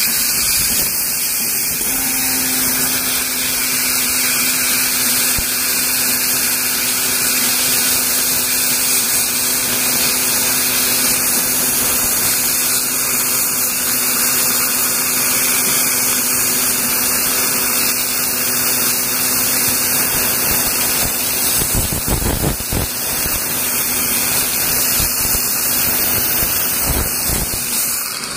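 Dental air polisher spraying bioactive glass powder on stained teeth: a loud, steady hiss. A faint, steady hum joins about two seconds in.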